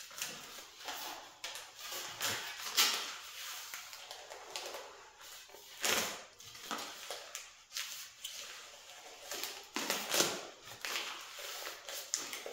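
Sheet metal being handled and worked by hand: irregular light clicks, taps and scrapes, a few sharper knocks among them.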